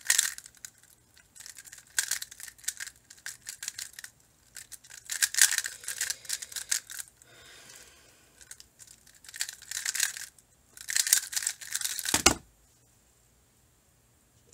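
Square-1 puzzle being turned fast by hand: bursts of plastic clicking and scraping as the layers are twisted and sliced, broken by short pauses. It ends abruptly with a thud about twelve seconds in.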